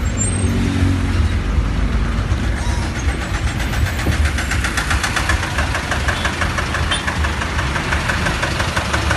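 Motor vehicle engines in slow road traffic: a steady low rumble, joined about three seconds in by a fast, even engine clatter.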